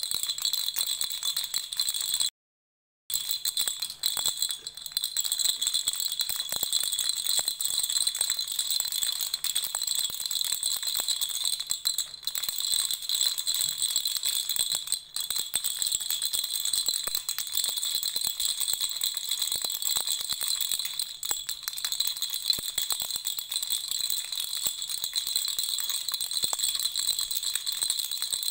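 Baby rattle shaken continuously, a dense, bright clatter of small rattling pieces. It cuts out completely for under a second a little after two seconds in, then carries on.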